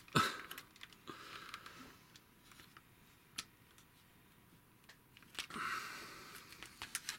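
Plastic parts of a Generation Toy Gravity Builder Mixer transforming robot toy clicking and rattling as they are handled and forced into position. A sharp click comes right at the start, single clicks follow about three and a half and five and a half seconds in, and a short rustle of handling comes just after the second of these.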